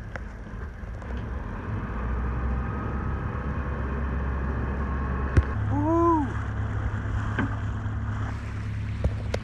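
Small tugboat's engine running steadily with a low hum. About halfway through there is a sharp click, then a short pitched call that rises and falls.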